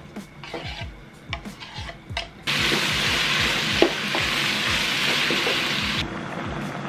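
Chopped stew vegetables and tomatoes sizzling in a hot metal pot as they are stirred, the sizzle starting suddenly a few seconds in and cutting off near the end, after a few light clicks of tomato pieces dropping off a wooden cutting board. Background music with a steady beat runs underneath.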